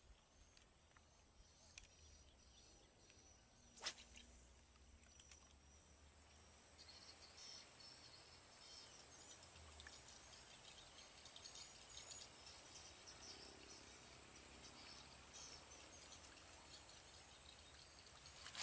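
Near silence: faint outdoor ambience with a thin steady high-pitched hum, one brief sharp sound about four seconds in, and faint high crackling from about seven seconds on.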